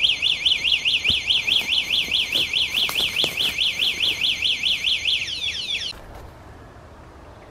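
Cheap battery-powered bicycle anti-theft alarm sounding a loud, fast warbling siren, about five sweeps a second. It starts abruptly and cuts off after about six seconds.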